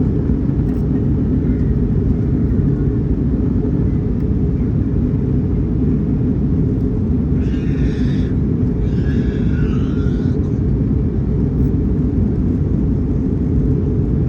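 Steady low rumble of a QantasLink Airbus A319-100 jet airliner, its engines and rushing air holding an even level with no rise or fall.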